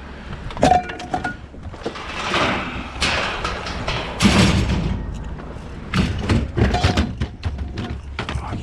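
A series of irregular thumps, knocks and scrapes as a discarded chair and other curbside junk are handled and shifted around.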